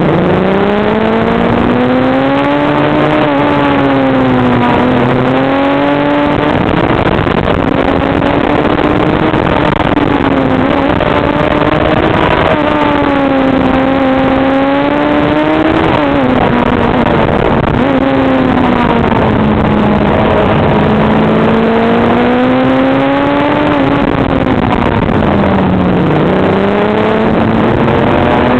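Sport motorcycle engine at speed, its pitch rising and falling with the throttle through the bends and jumping sharply a few times as it shifts gear, over rushing wind noise.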